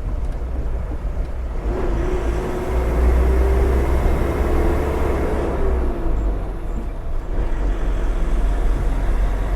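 Truck engine and road noise heard while driving: a steady low rumble, with a droning tone that swells in about two seconds in and fades away near six seconds.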